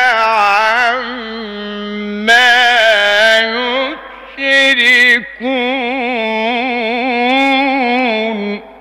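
A man chanting the Quran in the melodic Egyptian mujawwad style. He draws out long notes with wavering, ornamented pitch and breaks the phrase briefly about four and five seconds in.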